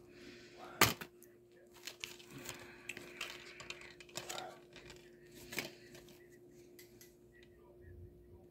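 Plastic-wrapped CD case being handled and unwrapped: scattered sharp clicks and soft crinkling of the plastic, the loudest click about a second in, over a faint steady hum.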